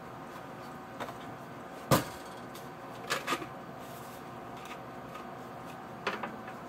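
Kitchen containers being set down on a counter and stovetop: a handful of knocks and clicks, the sharpest about two seconds in, with small clusters near the middle and near the end, over a steady faint hum.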